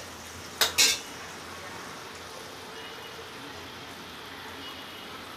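Two sharp clinks just under a second in, then the steady hiss of the fish-and-drumstick mustard gravy simmering in the kadai on the gas stove.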